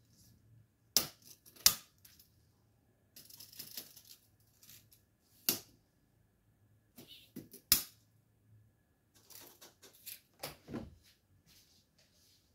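Sharp clicks and taps with a few short rustling stretches from a steel tape measure and marker pen being handled over a foam seat cushion.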